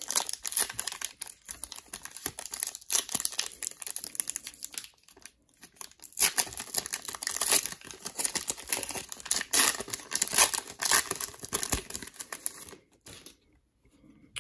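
Plastic wrapper of a Mosaic trading-card cello pack crinkling and tearing as hands pull it open, in irregular crackly bursts that are loudest in the middle and die away about a second before the end as the cards come out.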